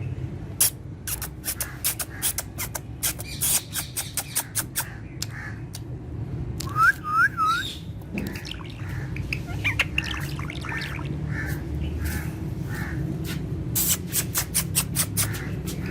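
Ringneck parakeet calling: runs of sharp clicks, three quick rising-falling chirps about seven seconds in, then a string of short repeated calls, with another burst of clicks near the end.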